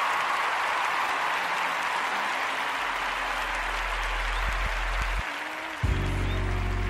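Recorded crowd applause at the opening of a hip-hop track, fading as a low bass note comes in about three seconds in. Near the end the beat and music start abruptly.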